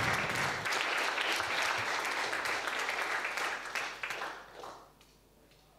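Audience applauding with many hands clapping, dying away about four and a half seconds in.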